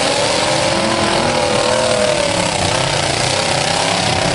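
Several demolition derby cars' engines running and revving together, their pitches wavering up and down.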